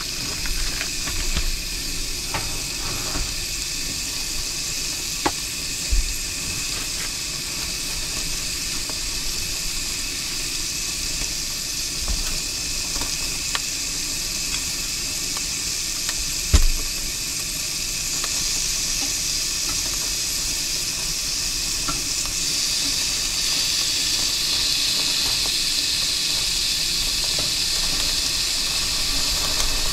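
Strips of bacon sizzling on the grill grate of a propane camp stove: a steady frying hiss that grows louder in the second half as the grate heats. Two short knocks stand out, the louder about two-thirds of the way through.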